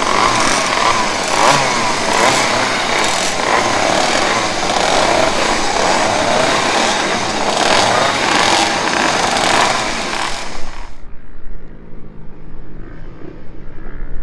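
Voskamp Kreidler GP 50 racing motorcycle's 50 cc two-stroke single running loud at high revs, a buzzing, chainsaw-like blare. Near the end the sound changes abruptly to a duller, lower, uneven rumble.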